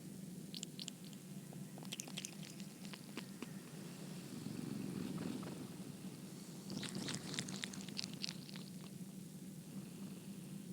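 Domestic cat purring steadily, with clusters of small sharp clicks about half a second in, around two to three seconds in, and again from about seven to nine seconds in.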